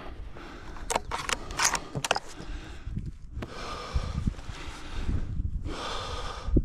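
A person walking over tundra scrub with a rifle: footsteps in the low brush and heavy breathing in long, loud breaths. A few sharp clicks of handled gear come between one and two seconds in.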